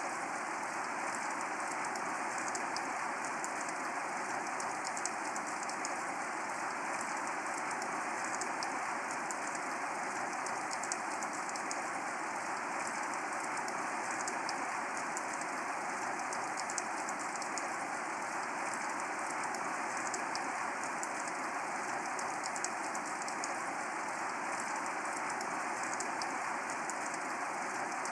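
Steady rain falling, a dense patter of individual drops over an even hiss.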